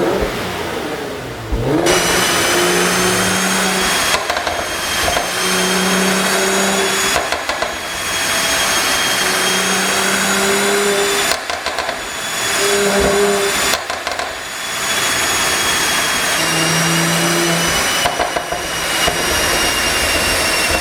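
Mercedes-AMG C43's twin-turbo V6 revved about five times, each rev held steady for a second or two. Between the revs, as the throttle drops, the exhaust crackles and pops from its pop-and-bang tune, over a steady high whine.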